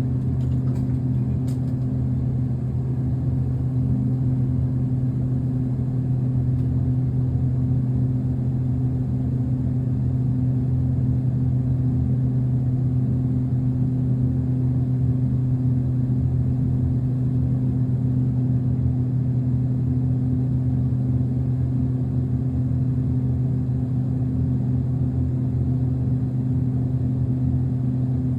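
Dover traction service elevator travelling between floors, heard from inside the cab as a steady low hum with no change in level, and a faint click about a second and a half in.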